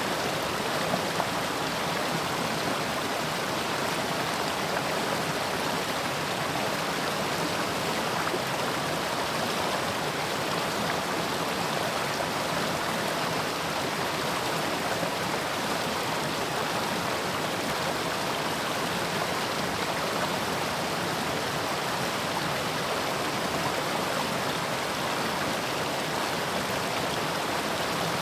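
Mountain stream flowing: a steady, even rush of water over rocks.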